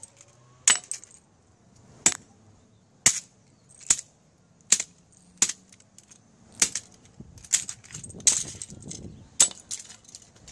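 A small hammer's metal head striking a cheap plastic computer mouse on a concrete floor, about ten sharp blows roughly a second apart, smashing the mouse apart.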